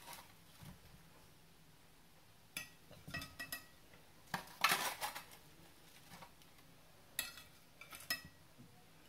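A metal slotted spatula clinking and scraping against a roasting tray and a ceramic plate as roast potatoes are served, in three short clusters of clatter with quiet between.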